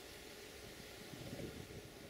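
Faint outdoor background noise: a steady hiss with a soft low rumble swelling briefly a little over a second in.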